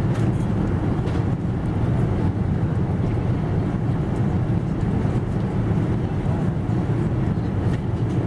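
Steady low rumble of a Boeing 777's cabin noise, the engines and airflow heard from an economy seat, holding an even level throughout.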